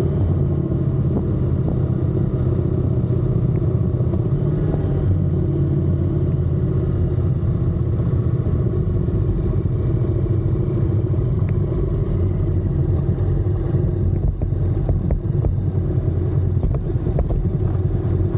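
Honda NC750X parallel-twin engine running steadily under way, a low, even engine note with no change in pace.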